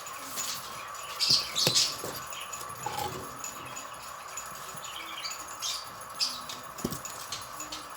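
Small songbirds giving short scattered chirps, with a few sharp knocks among them and a steady faint tone underneath.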